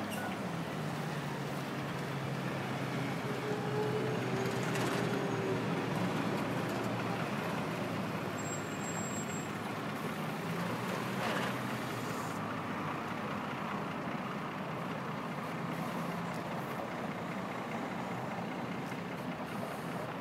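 Steady city road traffic noise: the mixed drone of car, bus and truck engines.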